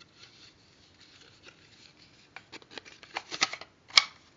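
Hands handling a cardboard View-Master reel and its booklet: light rustling, then a run of small clicks and scrapes in the second half and one sharp click near the end.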